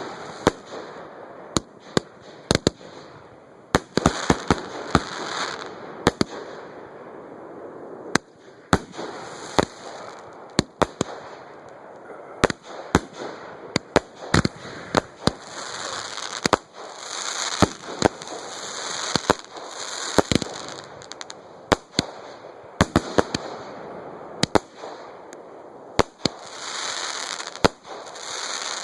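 Fireworks display: a rapid, irregular series of sharp bangs from shells going off, with several swells of dense crackling.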